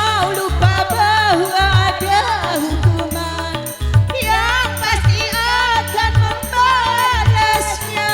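Dangdut music from a street orkes: a bending, ornamented lead melody over a steady beat of low drum thumps and bass.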